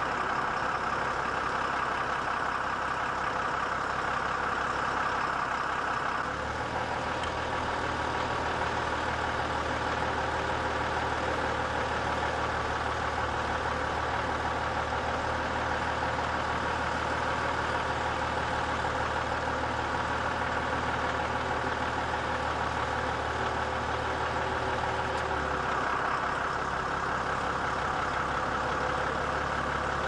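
Deutz-Fahr Power Liner Climber hillside combine harvester running steadily as it harvests, engine and threshing machinery together. The sound changes about six seconds in, when a deeper steady hum comes in, and changes back near the end.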